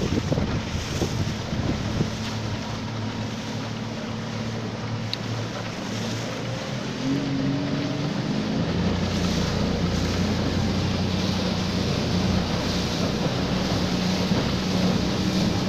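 Motorboat engine running under way, with water rushing along the hull and wind buffeting the microphone. About halfway through, the engine note shifts and grows a little louder.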